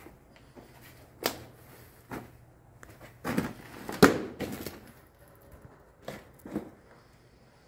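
Irregular footsteps, about seven short thuds and scuffs with pauses between them, the loudest a sharper knock about four seconds in.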